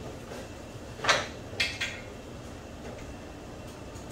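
A few short clicks and knocks of parts being handled in an engine bay, the loudest about a second in and two lighter ones just after.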